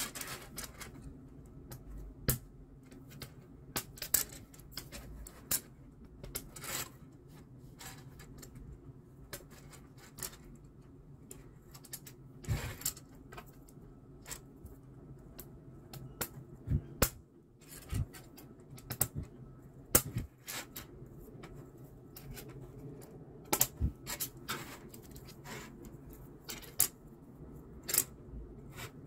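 Plastic toy train track pieces clicking and tapping as they are fitted together and set down on a tiled floor, in irregular sharp clicks.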